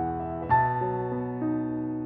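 Background piano music: soft, slow notes, with a new chord struck about half a second in.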